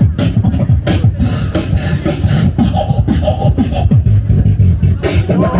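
Beatboxing: a rapid run of vocal drum strokes over deep bass hits, with short pitched vocal sounds in between.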